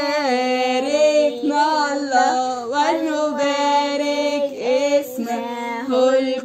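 Girls' voices singing an Arabic Coptic madih, a hymn of praise to the Virgin Mary, drawing the words out over long, sliding melismatic notes.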